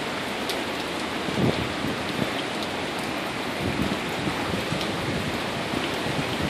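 Hurricane rain falling steadily onto wet pavement and ground, an even hiss of rain with a few brief low bumps.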